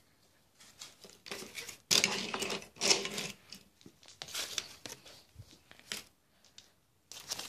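Handling noise: irregular rustling and scraping with a few light clicks, loudest about two and three seconds in, as the phone and the plastic toys are moved about.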